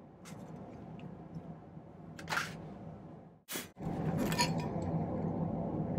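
Silver wire snipped with wire cutters and small wire pieces clinking down on the bench: a few sharp metallic clicks, the loudest about two seconds in. After a brief gap about three and a half seconds in, a steady low hum comes up.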